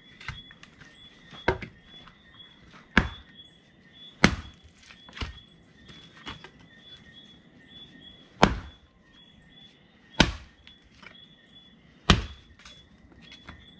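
Axe chopping sticks of firewood into smaller kindling pieces on the ground: a series of sharp chops, about one every one to two seconds, with fainter knocks between.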